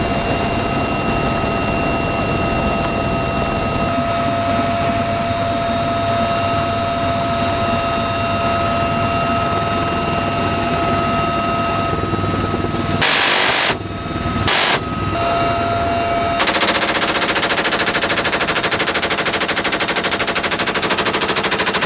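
Steady helicopter cabin noise with a few high steady tones. About halfway in come two short bursts of GAU-21 .50-caliber door-gun fire, then a long continuous burst of rapid fire running to the end.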